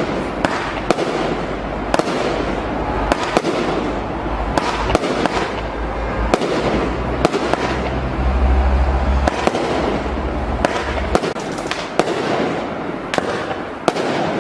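NICO 'Seismic Wave' 68-shot firework battery firing: a rapid, irregular string of shots and bursts, several a second, over constant crackling, with a heavy low boom in the middle.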